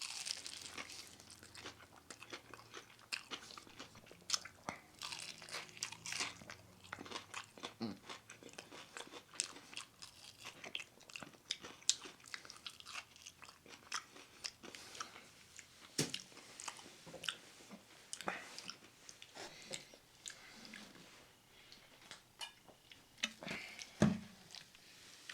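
Close-up chewing and biting into crispy fried chicken wings: irregular crunches and wet mouth clicks, with a few sharper crunches.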